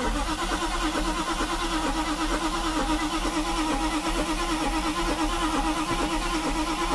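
Starter cranking a Mercedes V8 with a rapid, even rhythm, the engine not catching. Its rebuilt mechanical fuel distributor is delivering fuel, but the mixture is set far off.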